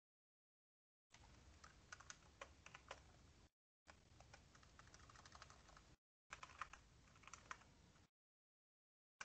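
Faint typing on a computer keyboard: three runs of quick key clicks, each about two seconds long, with dead silence between them.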